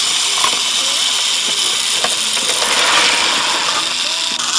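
Battery-powered Fisher-Price GeoTrax toy train running along plastic track: its small electric motor and gearbox whir steadily and high-pitched.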